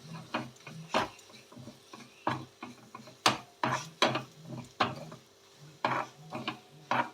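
Spatula scraping and knocking against a pan as a thick ginger, jaggery and coconut mixture is stirred and roasted until the jaggery melts, in irregular strokes about once or twice a second.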